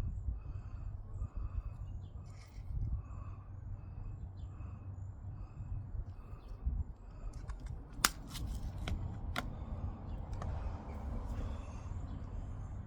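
Outdoor garden sound: a low rumble under a small bird calling over and over, then a quick run of sharp clicks and snaps about eight seconds in, the first of them the loudest.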